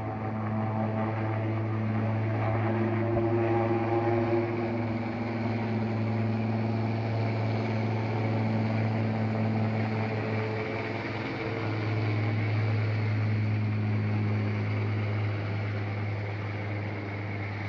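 Helicopter lifting off and flying away, its turbine engines and rotors making a steady, even drone with a strong low hum.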